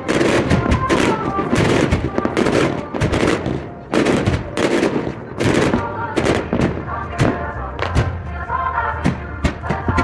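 Aerial firework shells bursting in quick succession, several sharp bangs a second over a continuous rumble, crowded together and pitched up because the recording runs at four times speed. Sped-up music plays underneath.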